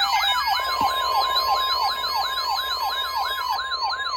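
Weather radio alert sounding for a severe thunderstorm warning: a steady NOAA Weather Radio warning tone near 1 kHz begins about half a second in, over a receiver's siren-like alarm that sweeps up and down about three times a second.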